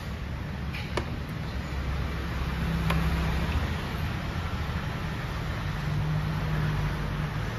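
Steady low mechanical rumble in the background, with two light clicks about one and three seconds in as the plastic muffler cover is handled.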